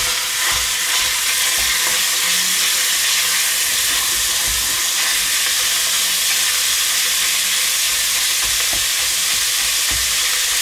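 Ground meat sizzling steadily as it browns in hot oil in a stainless steel pot, stirred with a wooden spatula. A few soft knocks of the spatula against the pot come through the sizzle.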